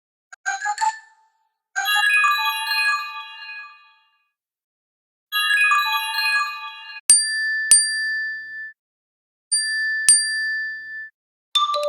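Short built-in iPhone 5s tones playing one after another. First comes a quick run of rising notes, then a bright chime about two seconds in that fades over two seconds, and a similar chime around five seconds in. In the second half, two sharp pings followed by a held tone are played twice.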